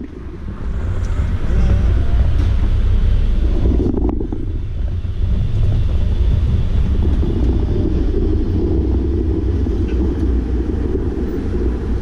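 Steady low rumble of street traffic mixed with wind buffeting the microphone.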